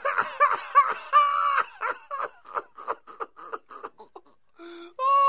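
Beagle howling in a quick run of short rising-and-falling calls that fade over the first couple of seconds, then a few quieter whines, ending with a longer howl.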